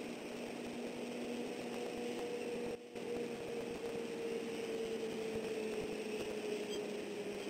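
Steady hiss from an outdoor camera microphone, with a distant engine drone that slowly drops in pitch.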